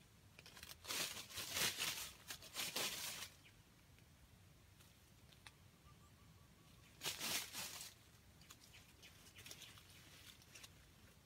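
Dry leaf litter rustling and crackling as a wild junglefowl rooster moves through it, in uneven spells: one from about a second in lasting two to three seconds, another around seven seconds, then fainter scuffs.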